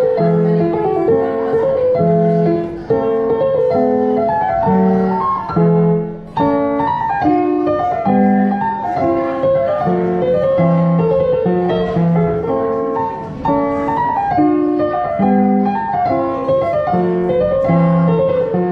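Yamaha Clavinova digital piano played with both hands: a steady melody over a repeating low bass figure, with a brief break about six seconds in.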